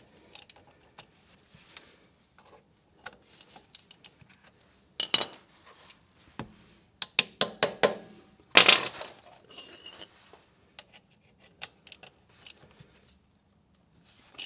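Hammer tapping a triple-square bit into a CV joint bolt head to seat it fully so it won't slip: sharp metal clinks, one about five seconds in, then a quick run of taps around halfway through, with lighter tool clicks between.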